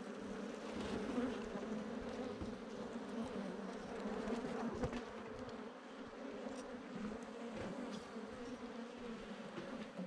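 A swarm of Africanized honeybees buzzing steadily in a dense, even hum, with a few faint knocks.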